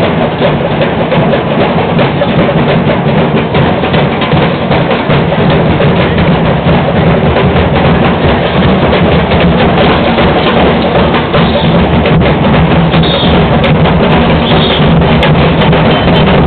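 Carnival comparsa's drum band playing a loud, busy percussion rhythm of many drums beating together.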